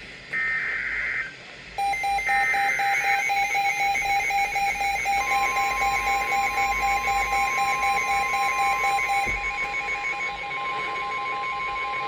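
Weather-alert radio: the last two SAME data bursts of an emergency alert header, then a rapid electronic alarm beeping from the receiver, joined about five seconds in by the steady 1050 Hz NOAA Weather Radio warning tone. The sequence signals a new warning about to be broadcast.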